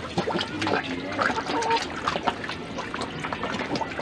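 Pond water splashing and sloshing as catfish thrash at the surface feeding on maggots: a run of small, irregular splashes.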